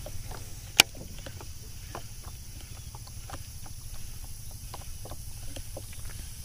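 Baitcasting reel being cast and retrieved from a small fishing boat: one sharp click just under a second in, then scattered light ticks and taps over a steady low rumble.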